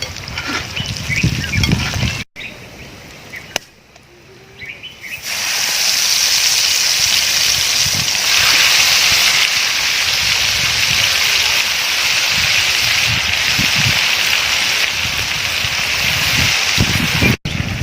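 Quail pieces deep-frying in hot oil: a steady loud sizzle that starts about five seconds in, after a quieter stretch with a few faint knocks.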